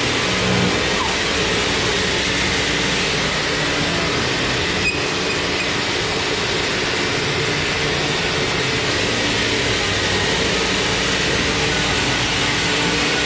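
Sawmill machinery running with a loud, steady mechanical noise and a low hum, and a single sharp click about five seconds in.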